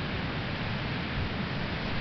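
Atlantic Ocean surf washing onto the beach as a steady, even hiss with a low rumble underneath.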